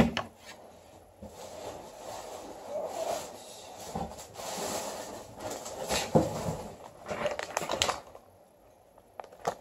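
A sharp knock as a plastic toy controller is set down on a table, then rustling and crinkling of packaging with scattered knocks as someone rummages through the box and pulls out a charging cable in a plastic bag.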